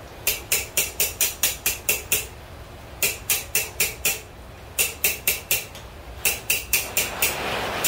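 Blacksmith's hand hammer striking steel on an anvil, each blow ringing. The blows come in quick runs of about four a second, with short pauses between runs. A steady rushing noise comes up near the end.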